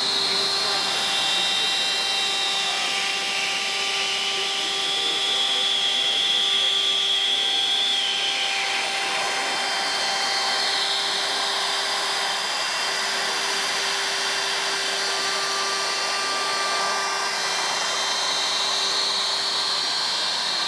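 Shaper Origin handheld CNC router's spindle running while it takes a light finishing pass, shaving about fifteen thousandths of an inch off the edges of a cut. Its high whine drifts down and back up in pitch several times over a steady lower hum.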